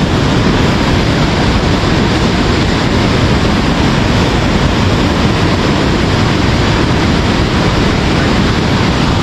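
Whitewater river rushing over boulders: a loud, steady, unbroken noise.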